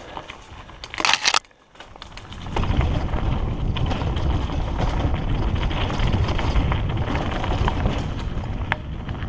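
Wind buffeting a helmet-mounted camera's microphone and the rattle and crunch of a hardtail mountain bike rolling over dirt and leaves on singletrack. A loud brief burst of noise about a second in is followed by a moment of near quiet, after which a steady heavy wind rumble sets in.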